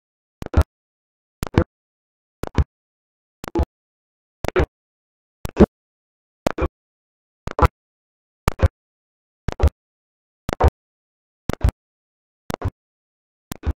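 Short chopped fragments of sound, about one a second at an even pace, with dead silence between them: the live stream's audio cutting in and out.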